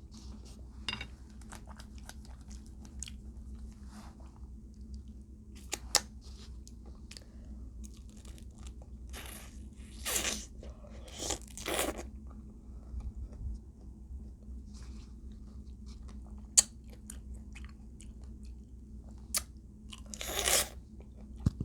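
Close-miked eating: chewing and mouth sounds with scattered short crunches and smacks at irregular intervals.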